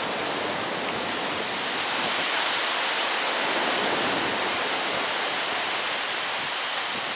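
Strong wind blowing steadily: an even, rushing hiss with no separate events, swelling slightly about two seconds in.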